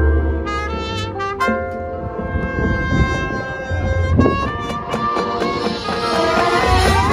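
High school marching band's brass playing long held chords over low drum hits. In the last second or two a crowd's cheering starts to swell up under the music.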